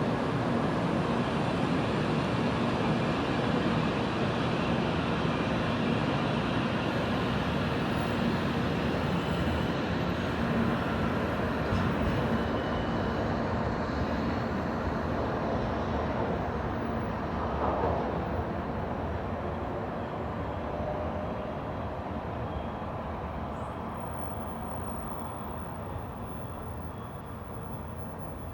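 Shinkansen train running through the station: a steady rush of running noise that slowly fades.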